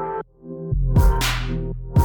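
Electronic background music with a heavy beat: deep bass hits, sharp snare-like hits and synth notes, with a brief drop-out about a quarter of a second in.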